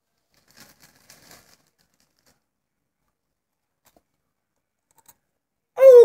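Mostly quiet room with a few faint rustles early on; near the end a boy's voice cuts in with loud, wavering high-pitched vocalizing.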